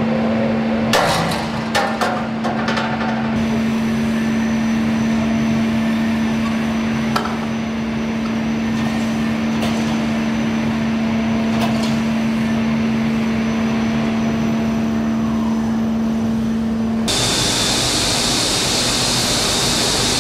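Steady machine hum in a large hangar with sharp metallic clanks and knocks, several in quick succession about a second in and a few single ones later. About three seconds before the end it gives way abruptly to a loud, steady hiss.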